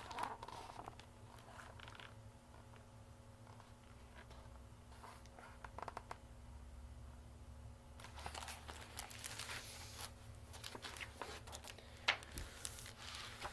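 Faint handling of a hardcover picture book held up and moved about: paper rustling and a few soft knocks and clicks, busier in the second half.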